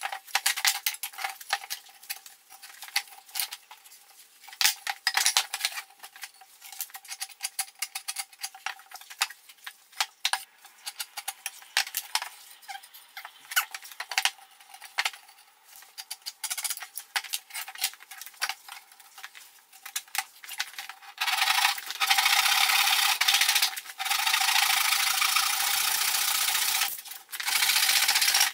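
Lengths of 2x4 lumber handled and set down on a workbench: a string of scattered knocks and clatters. About three-quarters of the way through, a hand saw starts cutting through a 2x4, a loud steady rasp of strokes broken by two short pauses.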